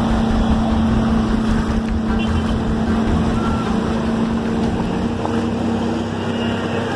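Motor traffic wading through a flooded street: a steady engine hum over a continuous rushing wash of water, with wind buffeting the microphone.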